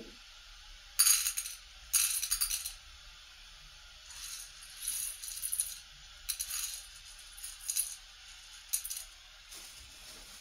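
Short bursts of rattling and rustling from small hard items being handled in a plastic bowl and plastic bag, every second or two, loudest about a second and two seconds in.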